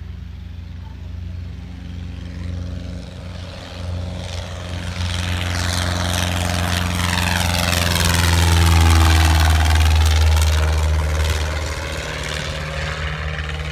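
Cessna 152's four-cylinder piston engine and propeller at full takeoff power, growing louder as the plane lifts off and climbs past, loudest about two-thirds of the way through, then easing off.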